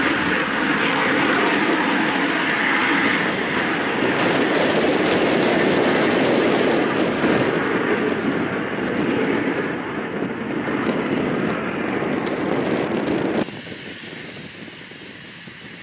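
F-22 Raptor's jet engines at high power as the fighter climbs away after takeoff: a loud, steady rushing noise. It cuts off abruptly about 13 seconds in, leaving fainter background noise.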